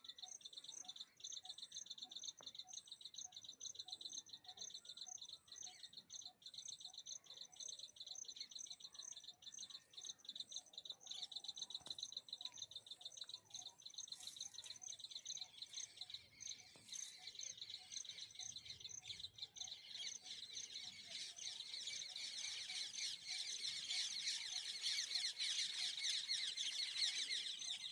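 Baby birds cheeping: a fast, steady run of high calls that swells louder and busier about two-thirds of the way in.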